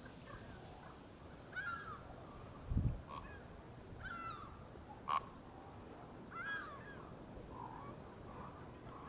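Geese honking faintly, a scattered series of calls every second or so. A dull low thump sounds about three seconds in, and a short sharp knock a little after five seconds.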